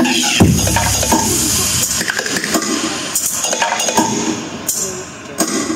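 Clinking and clattering over a low rumble that fades near the end.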